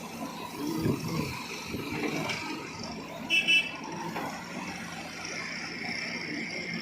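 Tractor and backhoe loader engines running, with a brief high-pitched double beep about three and a half seconds in.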